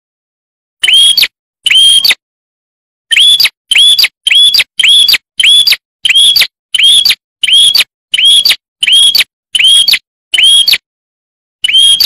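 Prenjak (prinia) lure recording: short, sharp chirps, each a quick upward sweep that levels off, repeated in a run about every half second, with brief pauses. It is a looped pikat track meant to draw wild prinias, mixed with the calls of prenjak chicks.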